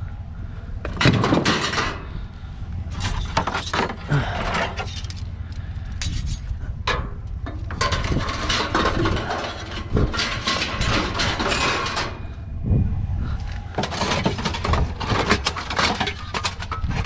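Scrap metal and appliance parts clanking and knocking as they are shifted and stacked onto a load, in irregular bursts over a steady low rumble.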